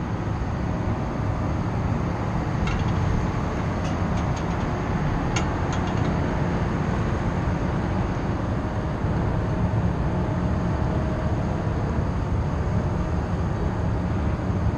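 Workboat under way: a steady low rumble from its engine and its run through the water. A few light clicks come between about three and six seconds in.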